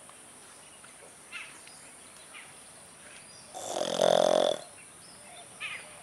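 Pig giving one drawn-out, rough grunt, about a second long, a little past the middle.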